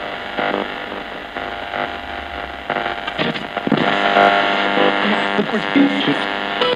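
Ghost box: a Thomson portable radio sweeping through FM stations, giving a choppy stream of hum, static and brief broken fragments of broadcast sound that change every fraction of a second.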